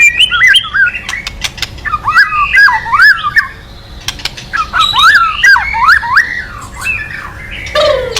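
White-rumped shama (murai batu) calling in three bursts of quick whistled glides, mixed with many sharp ticking clicks: the 'kretekan' call, which keepers play to provoke other shamas.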